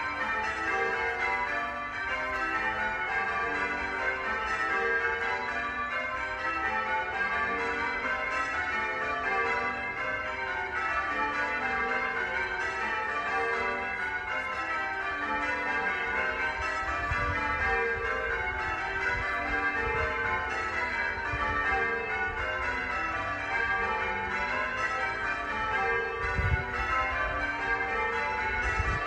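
Church bells ringing in a continuous peal, many bells struck in quick succession so that their tones overlap. A few brief low rumbles come in about two-thirds of the way through and again near the end.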